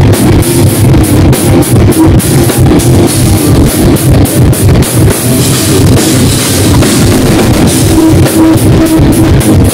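Thrash/groove metal band playing live and very loud: fast, steady drumming with bass drum and cymbals under distorted electric guitar and bass guitar.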